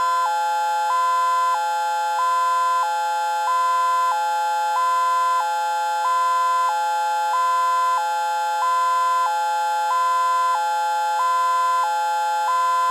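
Electronic outdoor warning siren playing its hi-lo two-tone, switching between two pitches about every two-thirds of a second. At the same time a mechanical siren holds a steady, multi-note tone at full speed. Both are radio-activated during a full system test.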